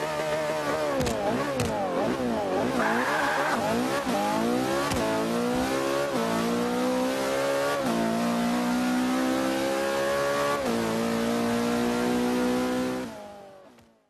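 McLaren P1 twin-turbo V8 engine, revved up and down in quick swings at first, then accelerating hard. Its pitch climbs and drops suddenly at each of about four upshifts before the sound fades out near the end.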